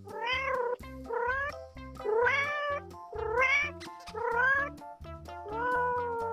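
Domestic cat meowing six times, about once a second, each meow rising then falling in pitch, the last one longer and steadier, with background music underneath.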